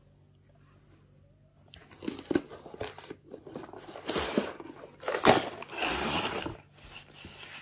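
Cardboard box of a construction-toy kit being opened: after a near-silent start, the lid scrapes and slides off, with bursts of cardboard rubbing and crinkling.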